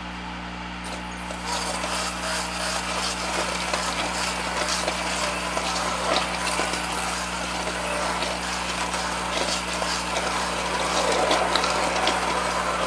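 Immersion blender running in a pot of thick butternut squash soup, starting about a second and a half in with a steady churning noise, blending in added stock to thin the purée.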